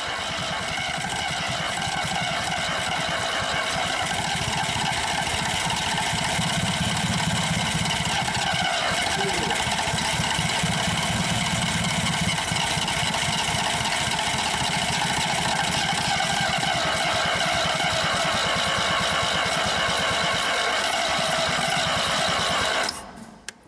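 Starter motor cranking a car engine fitted with home-made polyurethane pistons, turning it over steadily for about 23 seconds without it catching, then stopping suddenly near the end.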